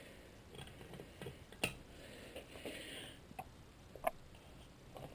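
A few faint, scattered metal clicks and light knocks as a breaker bar and socket are worked on the cylinder head bolts, the sharpest about a second and a half in.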